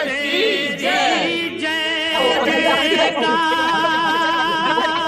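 Several voices singing together, with long held notes that waver.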